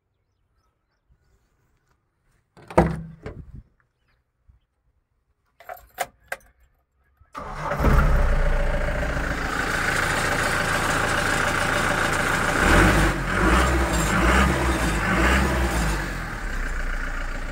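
A loud clunk and a few clicks, then the Mahindra Bolero Maxi Truck's diesel engine starts about halfway through and runs, its speed rising and falling a few times near the end.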